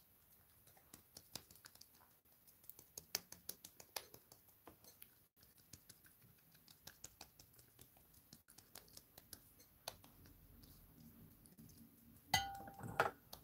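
Faint, irregular light taps and clicks, a few a second: fingertips patting makeup onto the cheeks. A louder short knock comes near the end.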